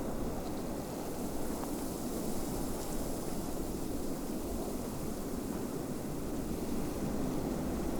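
Steady low rushing wind of a snowstorm, an even noise with no distinct events.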